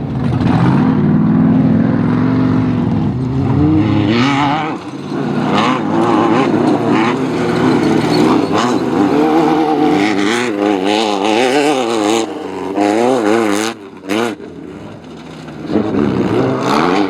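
Off-road race car engine running hard at high revs, its pitch wobbling quickly up and down. It drops off briefly about fourteen seconds in, then revs back up.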